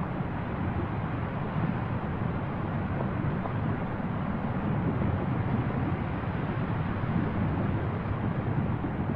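Steady low rumbling roar of an erupting volcanic fissure, its lava fountains spattering from the crater rim, with no breaks or single blasts.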